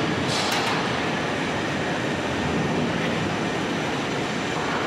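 Steady, loud rumble and hiss of machinery in a metal fabrication workshop.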